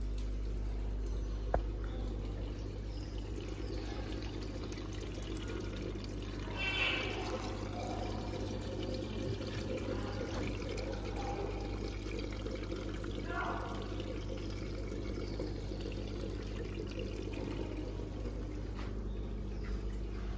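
Aquarium water running through a siphon hose into a plastic bucket, a steady trickle of water, as the tank is drained for cleaning.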